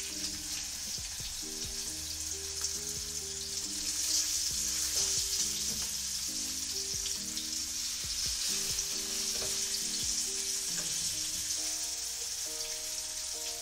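Salmon fillets frying in a generous amount of oil in a pan: a steady sizzle, with a few faint clicks scattered through.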